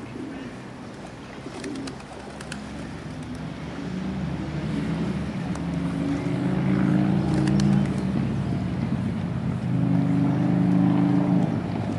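Feral pigeons cooing in low, repeated coos that grow louder through the second half.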